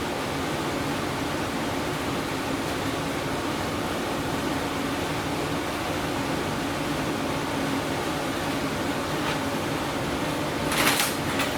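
Steady fan-like air noise with a low motor hum underneath. A brief rasping sound comes near the end.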